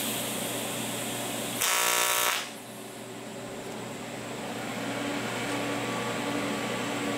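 AC TIG welding arc on 7075 aluminum, struck for under a second about a second and a half in as a loud buzz that cuts off sharply: a fast, hot spot weld with the amperage chopped off quickly to try to keep the weld from cracking.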